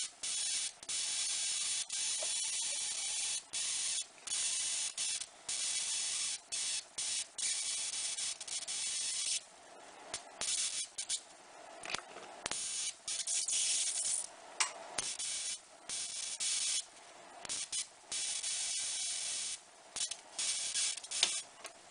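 Small high-voltage arc from a flyback transformer (TDKS) driven by a single KT817 transistor, hissing in spurts that cut out and restart every second or so. It is weaker and more broken up in the middle stretch.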